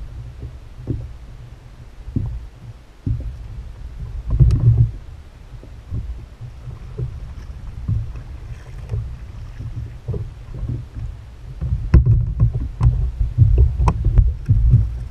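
Fishing kayak on choppy open water: water slaps against the plastic hull and the paddle strokes in an uneven low rumble, with a run of sharp knocks on the hull in the last few seconds.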